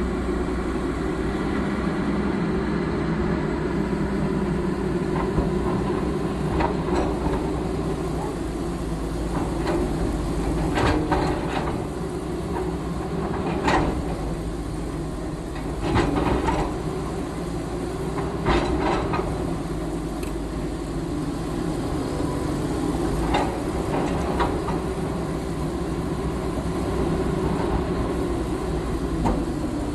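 Diesel engine of a heavy earthmoving machine running steadily under work, with loud metallic clanks at irregular intervals every few seconds.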